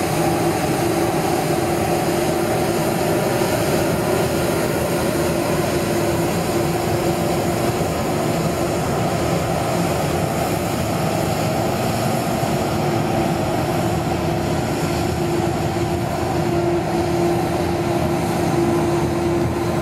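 Scania P270 street sweeper truck at work: engine and sweeping machinery running with a steady hum and a constant whining tone, its rotating brushes scrubbing grit along the curb.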